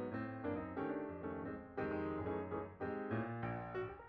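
Instrumental background music: a piano melody with chords, notes struck in quick succession.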